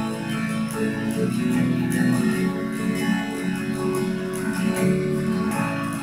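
Acoustic guitar strummed in a steady rhythm, playing a song.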